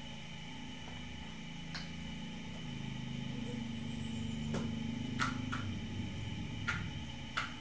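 A steady low motor hum, a little louder in the middle, with a handful of sharp clicks scattered through it.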